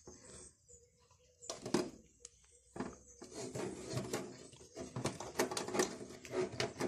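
Hands working the washing machine's drain hose and plastic fittings: a run of irregular knocks, clicks and rubbing that starts about a second and a half in and grows busier.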